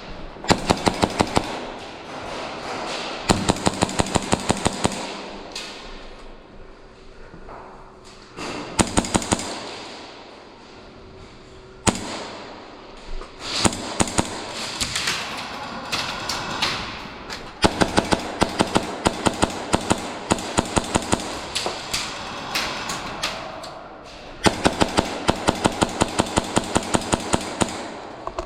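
Airsoft guns firing on full auto: several bursts of rapid, evenly spaced snaps, each lasting from about one to four seconds, with short pauses between them.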